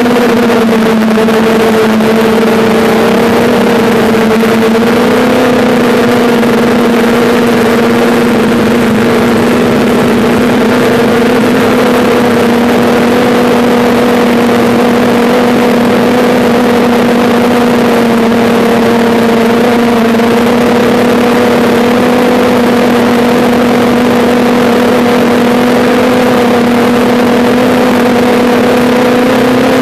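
Quadcopter drone's electric motors and propellers humming steadily in flight, picked up by a phone strapped to the drone itself, with a loud even whirr that wavers slightly in pitch.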